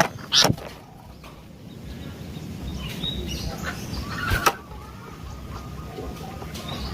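Sooty-headed bulbul (kutilang) giving a few short, sharp call notes, the loudest about half a second in, over a steady low rumble.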